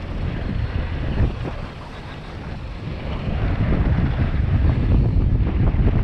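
Wind buffeting a helmet camera's microphone as a downhill mountain bike descends a dirt trail at speed, mixed with tyre noise on the dirt and short knocks and rattles from the bike over bumps. It gets louder from about halfway through.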